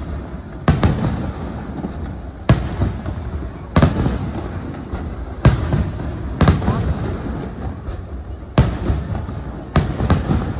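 Aerial firework shells bursting overhead: about eight sharp bangs at irregular intervals of one to two seconds, each followed by a rumbling echo.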